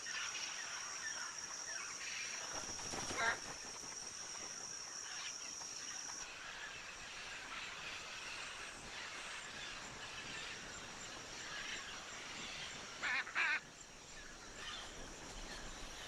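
Hyacinth macaws squawking: one loud harsh call about three seconds in and two more close together near the end. Under them a steady high insect drone stops about six seconds in, leaving a fainter rainforest hum.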